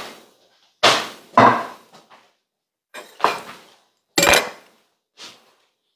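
Kitchenware being handled and set down on a wooden cutting board and counter: about six separate knocks and clinks, spread out with short gaps between them.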